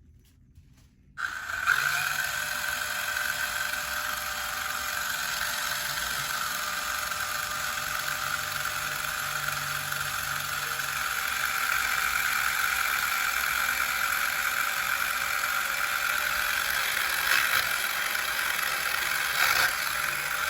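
Portable turbine washing machine's small electric motor starting abruptly about a second in and running steadily with a constant high whine.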